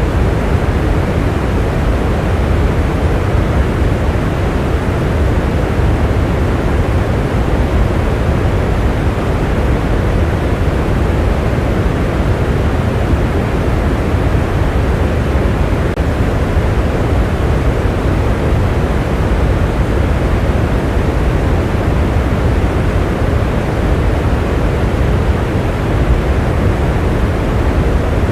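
Steady rain: a continuous, even rush heavy in the low end, without distinct drops, thunder or breaks.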